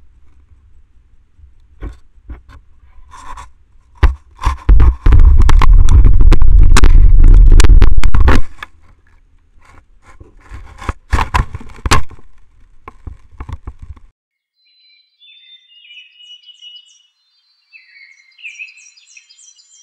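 Black bear mouthing and chewing on a trail camera right at its microphone: scrapes, clicks and knocks, with a loud, distorted stretch of several seconds in the middle, then the camera audio cuts off. Near the end, short repeated bird-like chirps.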